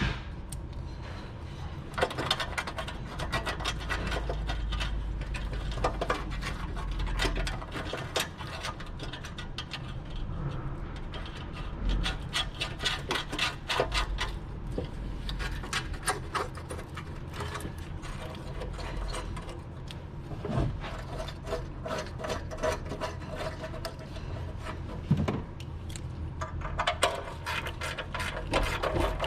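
Hand tool driving in the cover's retaining screws, with runs of rapid clicking and scraping and a few knocks.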